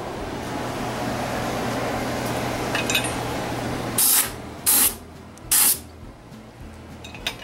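A steady rushing noise with a low hum, then three short hissing blasts of compressed air from a blow gun, each well under half a second and spaced a little under a second apart, with a light click near the end.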